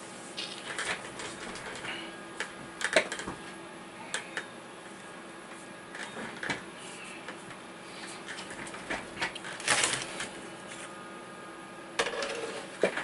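Irregular plastic clicks and knocks as a laptop's keyboard top case is handled and fitted back onto the base, with one longer, louder scraping sound about ten seconds in.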